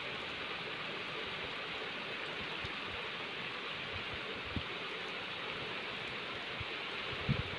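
Heavy rain pouring onto a flooded mud courtyard and its standing water: a steady, even hiss. Twice, a brief low thump stands out, about halfway through and near the end.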